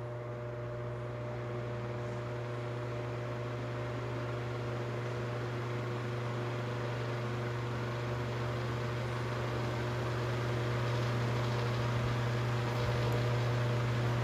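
Electric table/wall fan running steadily: a strong low motor hum with a few fainter steady tones above it and the hiss of moving air, growing slightly louder toward the end.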